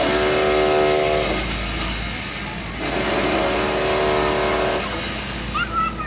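A heavy machine's engine running hard in two bursts of about two seconds each, with a short high squeak near the end.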